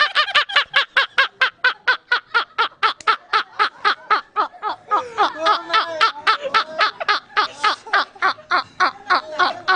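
Two men laughing hard: a long, even run of short ha-ha bursts, about five a second, with a second, lower voice laughing along about halfway through.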